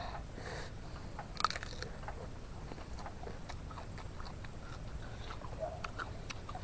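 A person biting and chewing raw, unripe seeded banana (pisang klutuk): scattered small mouth clicks, with one sharper one about a second and a half in.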